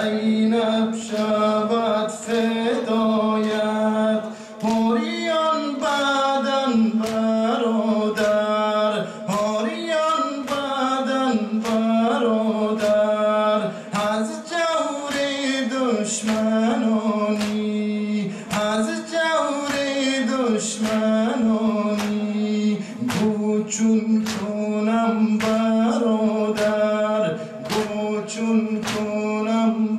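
Solo male voice singing a Persian nawha, a Muharram lament, over a steady low hum. Mourners beat their chests (matam) in a steady rhythm of sharp slaps, a little faster than one a second.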